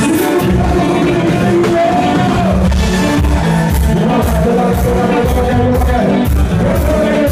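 Live konpa band playing with a male lead singer. Bass and drums keep a steady dance beat, with cymbal strokes about twice a second.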